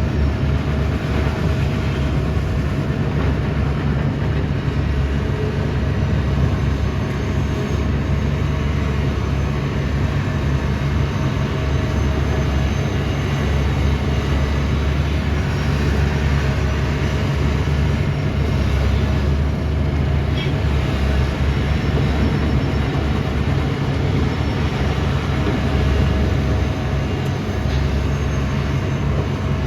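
Diesel engine of a large excavator running steadily, a constant low drone that holds its level without a break.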